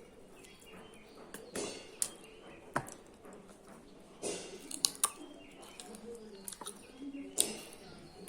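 Close-up eating sounds: chewing and crunching on chicken bones, with wet mouth clicks, in a string of short sharp noises that are loudest about four to five seconds in and again near the end.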